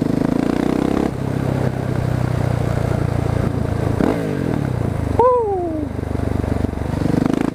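Husqvarna 701 Supermoto's single-cylinder engine running while being ridden, through an exhaust with its dB killer removed. The engine note drops about a second in, and the revs fall off again twice in the second half.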